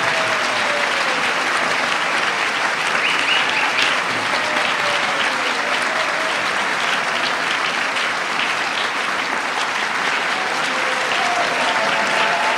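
Theatre audience applauding steadily, with dense, even clapping and no break.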